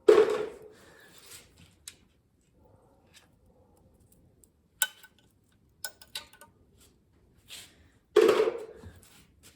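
Metal hand tools and engine parts clattering and clinking during an engine teardown: two loud clatters, one at the start and one near the end, with a few sharp clicks in between.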